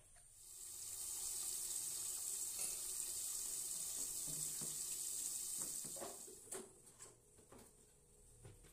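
Long beans and tempeh stir-frying in a wok, a steady sizzling hiss that stops about six seconds in, followed by a few light clicks.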